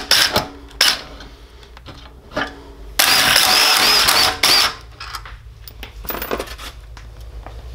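Cordless impact driver hammering the clutch retaining bolt off a small engine's crankshaft: a few short bursts near the start, then one longer rattling run of nearly two seconds around the middle.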